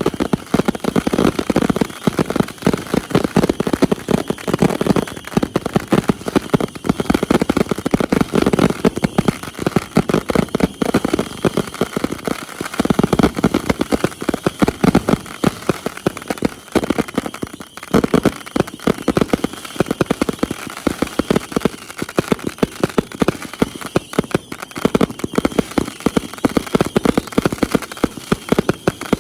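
Fireworks going off in a dense, unbroken stream of rapid cracks and bangs, with heavier clusters a few times.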